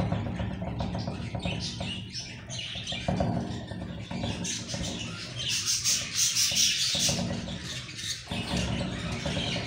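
Budgerigars chattering and chirping while they peck kernels from an ear of corn, with a denser run of chatter in the middle.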